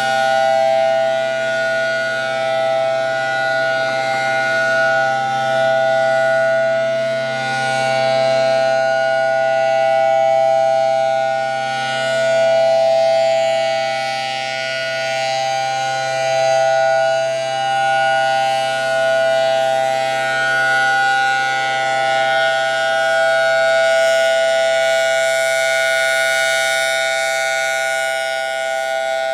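Federal Signal Thunderbolt 1000AT outdoor warning siren sounding a steady tone at full pitch. Its loudness swells and fades every few seconds as the rotating head sweeps past.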